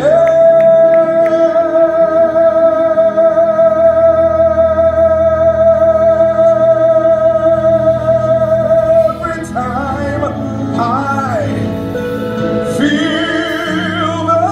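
Live gospel worship song: a male singer holds one long high note for about nine seconds over the band, then sings quick vocal runs and ends on a note with vibrato near the end.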